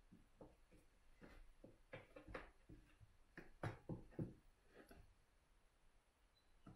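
Faint, scattered soft knocks and scuffs of two Bengal kittens pawing at each other and shifting on a carpeted cat tree, with two louder thumps a little past halfway.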